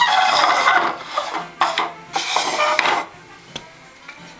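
Rummaging through a box of packed dolls house furniture: several rasping, rustling bursts of handling and rubbing over the first three seconds, then quieter with a small click or two.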